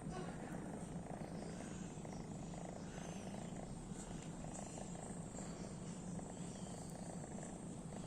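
A sleeping domestic cat purring, a low rattle that goes on without breaks.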